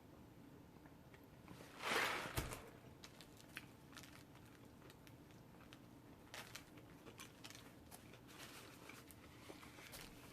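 Faint sounds of someone eating a sub sandwich: a short rustle about two seconds in, the loudest moment, then scattered soft clicks of chewing.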